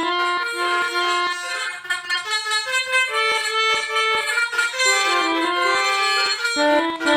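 Pianika (melodica) playing a bus telolet horn tune in the Basuri style: a quick run of reedy notes, some held together, with short breaks between phrases.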